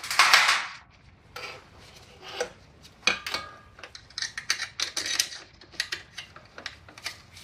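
Irregular metallic clicks and clinks from hands handling the feed motor and hand wheel of a Kwik-Way on-car brake lathe, with a short scraping rustle at the start.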